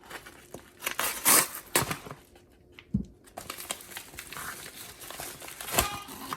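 Packaging crinkling and rustling as it is handled, with a few sharp clicks and taps in between.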